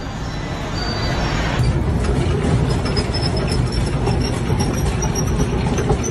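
Treadmill running, with a shopping cart's wheels rolling on the moving belt: a steady rumble with a thin high whine over it.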